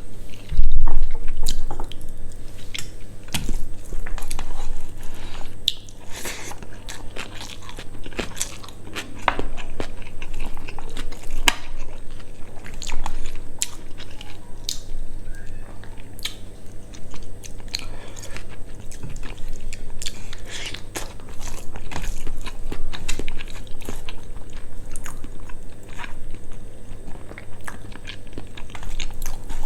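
Close-up eating sounds: a person biting and chewing quail meat on the bone with rice and salad, with irregular crunches and clicks, over a steady low hum.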